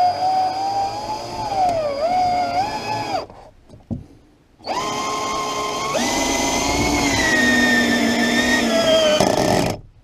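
Power driver's motor whining as it drives a SPAX construction screw through sheetrock into a 2x4 wall sole plate and the floor below, its pitch wavering and sagging under load. It stops for about a second and a half partway through, then runs again and slows toward the end as the screw goes home.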